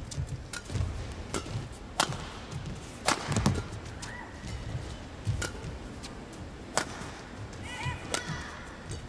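Badminton rally: sharp smacks of rackets striking the shuttlecock at irregular intervals of about a second, mixed with players' footfalls and a few high squeaks of court shoes on the mat.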